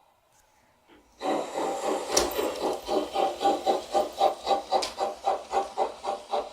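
Steam-locomotive chuffing from the sound decoder of an LGB G-scale model of the Saxon I K narrow-gauge tank engine, played through the model's loudspeaker. The chuffs start about a second in and run in a steady rhythm of about three a second.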